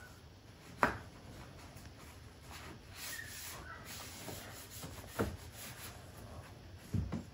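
Applicator pad rubbing ceramic coating onto a plastic honeycomb car grille, a faint uneven scuffing, with a few light knocks: one about a second in, one around five seconds, one near the end.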